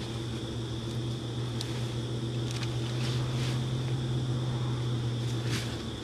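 A motor vehicle's engine running steadily at an even pitch, stopping just before the end, with a faint steady insect trill underneath.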